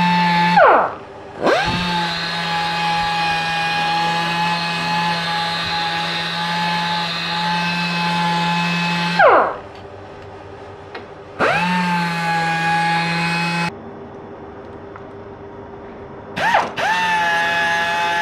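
Pneumatic air sanders working on a motorcycle engine case: a high, steady whine that spins down and back up about a second in, runs on, winds down a little after the middle, runs again briefly and cuts off, then spins up once more near the end, when an air finger sander is in use.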